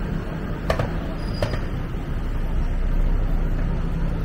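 City street traffic with a vehicle engine running close by as a steady low hum, and two sharp clinks about a second into it.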